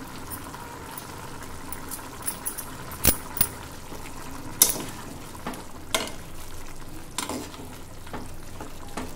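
A metal spatula stirring a thick, simmering vegetable curry in a kadai, with several sharp clinks of metal against the pan over a steady bubbling hiss.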